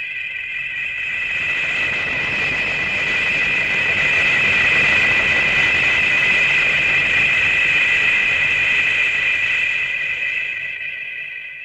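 Monster-film sound effect of a jet-like whine: a steady high-pitched tone over a rushing roar. It swells up over the first few seconds, holds, and fades away near the end, like something flying in and passing.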